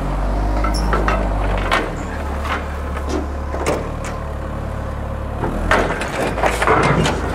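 Propane forklift engine running as the forklift is driven up wooden ramps onto a flatbed trailer, its low hum changing pitch a few times as it works the climb. Scattered sharp knocks from the wheels on the wooden ramps and trailer deck.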